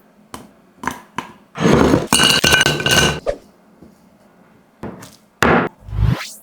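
Metal kitchen utensils clinking and scraping against cookware, with a longer run of ringing metallic clinks and scraping about two seconds in, and a few separate knocks before and after.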